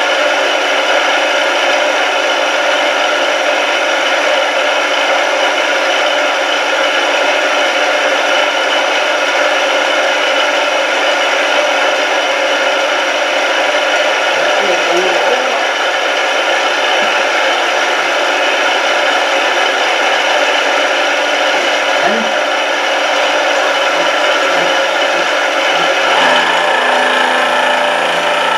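Indexable end mill with APMT 1003 carbide inserts milling steel on a CNC mill, a 1 mm deep cut at 125 mm a minute. It makes a loud, steady cutting noise over the spindle's whine, and the tone shifts near the end.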